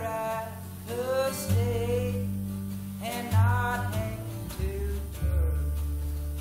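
Unplugged acoustic string band playing live: upright bass notes under acoustic guitar, with a singer's long sung phrases over them.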